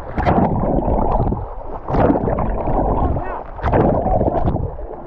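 Water splashing and sloshing over the microphone of a handheld camera as a swimmer strokes through the water, in surges about every 1.8 seconds. The camera dips in and out of the surface, so the splashing comes and goes between open-air and muffled underwater sound.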